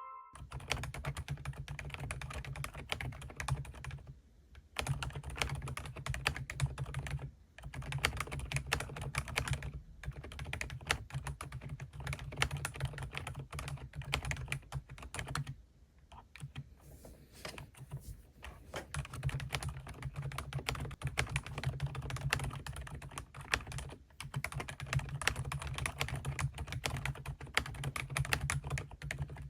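Typing on a GK65 mechanical keyboard with Outemu silent cream yellow switches: fast, continuous keystrokes with a soft, muted clack, broken by a few short pauses.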